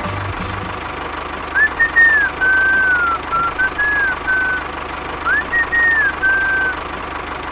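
Tractor engine running steadily, with someone whistling a short tune over it from about a second and a half in; the same rising-and-falling phrase comes twice.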